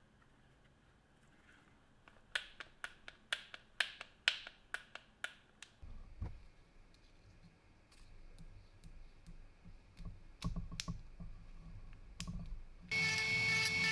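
A quick run of sharp clicks, then low knocks and rattles as a carbide burr bit is handled at a rotary tool, and about a second before the end the rotary tool's motor switches on and runs with a steady whine, the loudest sound here.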